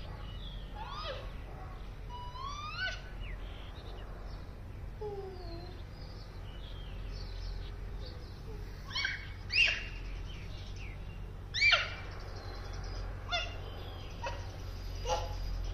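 Several birds calling, a scatter of short chirps and whistled glides, with a few louder sharp calls in the second half, over a steady low rumble.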